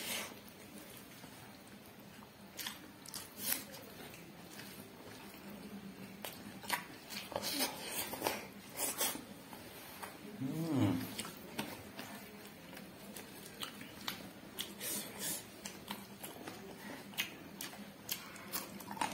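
Chewing and biting sounds of a person eating spicy pork and intestine, with scattered sharp smacks and clicks. A brief pitched sound that rises and falls comes about ten and a half seconds in.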